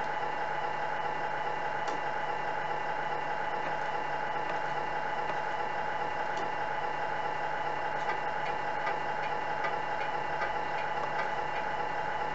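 Tamiya MFC-01 sound unit's speaker playing a simulated truck diesel engine idling steadily, with a run of faint ticks about two-thirds of the way through.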